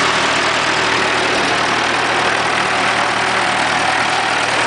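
1943 M5 military generator's four-cylinder, water-cooled Hercules ZXB engine running steadily at its 1200 rpm, turning the Hobart generator head with lamps lit on its output.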